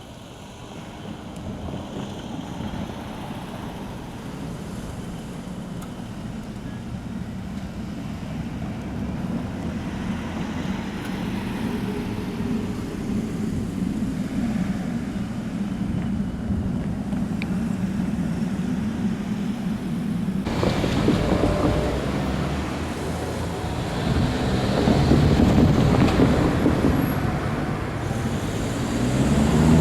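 Seibu Shinjuku Line train approaching on the tracks: a low rumble grows steadily louder, then turns suddenly fuller and louder about two-thirds of the way in as the train reaches the level crossing and starts passing.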